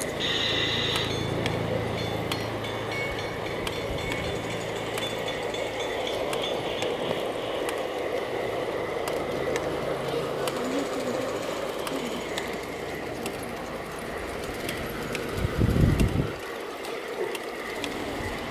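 Garden-scale model trains running on outdoor track: a steady electric motor hum for the first ten seconds or so, with light clicking of wheels on the rails. A brief loud low rumble about sixteen seconds in.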